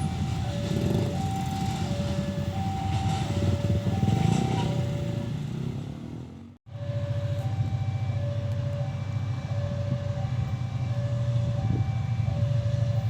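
Railway level-crossing warning alarm sounding, a low and a slightly higher electronic beep taking turns about every 0.7 s, over a loud low rumble. The sound drops out for a moment about halfway through.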